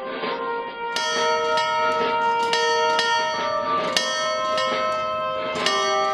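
Bells in a music soundtrack, struck about twice a second over sustained musical tones, starting about a second in and ringing on with shifting pitches.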